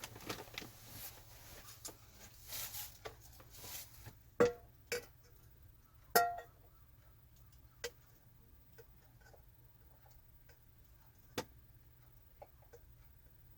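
Scattered clinks and knocks of kitchenware being handled, with rustling in the first few seconds; the loudest clinks, about four and a half and six seconds in, ring briefly.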